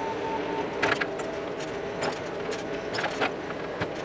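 Bobcat mini excavator's diesel engine running steadily while it works a brush and dirt pile, with several sharp clanks and rattles from the bucket and boom linkage. A few short beeps sound right at the start.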